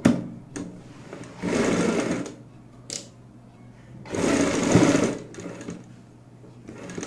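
Sewing machine running in two short bursts of stitching, each about a second long, with a few sharp clicks in between, as the folded waistband margin of a pair of palazzo pants is sewn down.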